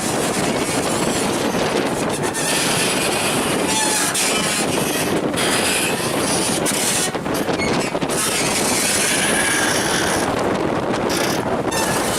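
Gale-force wind, gusting over 40 mph, buffeting the microphone in a dense, steady rush. A few brief faint squeaks show through the noise.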